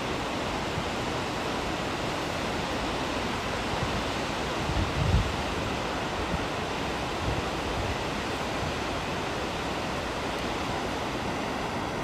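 Gullfoss waterfall: a steady rush of falling water, with a low buffet of wind on the microphone about five seconds in.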